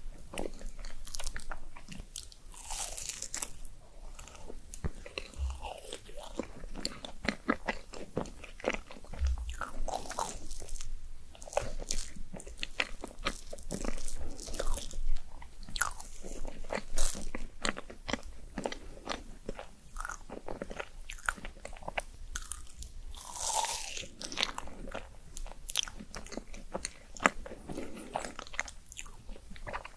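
Close-miked ASMR eating: a person biting and chewing food, with many sharp mouth clicks.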